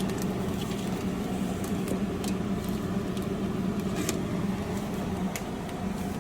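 Steady low hum of a microwave oven running, with a few faint scattered clicks.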